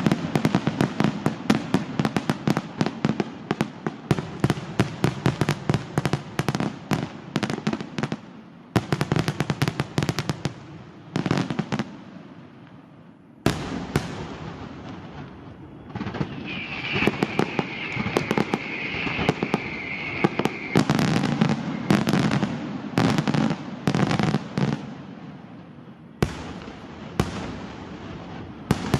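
Aerial fireworks display: a dense rapid crackle of sharp reports, then scattered loud bangs of bursting shells, with one big bang about halfway through. A high steady whistle sounds for about four seconds past the middle.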